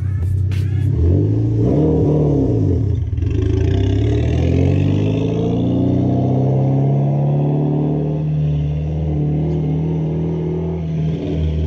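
Mitsubishi Lancer Evolution X's turbocharged 2.0-litre four-cylinder engine, fitted with an aftermarket cold air intake and blow-off valve, revving up and back down once, then climbing again and holding a steady loud drone. The car runs without a catalytic converter.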